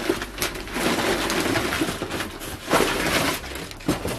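Crumpled brown kraft packing paper and a plastic bag rustling and crinkling as hands dig through a cardboard box and pull items out, in uneven swells.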